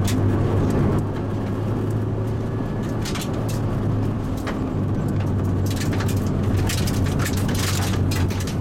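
Car engine running at a steady pitch, heard from inside the cabin, with tyre and road noise and scattered light clicks and rattles.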